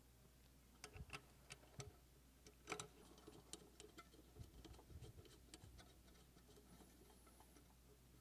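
Faint scattered light clicks and taps of hands handling a small metal live-steam model locomotive, with a few grouped about a second in and again near three seconds.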